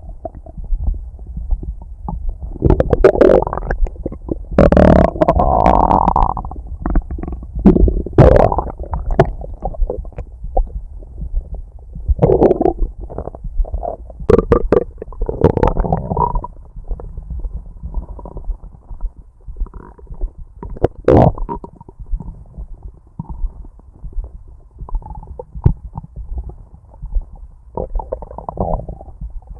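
Stomach growling loudly, with gurgling rumbles that come and go in irregular bursts and quieter gurgles between them.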